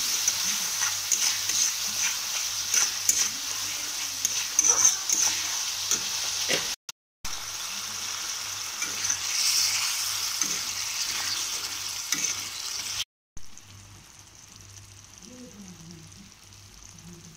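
Onion-and-spice masala sizzling in hot oil in a black iron kadai, with a spatula scraping and stirring it. The sound cuts off abruptly twice, and after the second break, about two-thirds of the way through, it is much quieter: the gravy with tomatoes is simmering.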